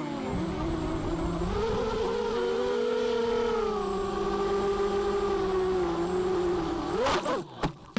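FPV racing quadcopter's brushless motors whining, the pitch dipping, rising and wavering with throttle, then climbing sharply and cutting off about seven seconds in.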